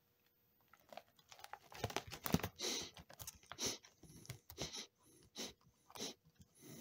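Lay's potato chips being crunched and chewed close to the microphone: a run of irregular, crisp crunches that starts about a second in.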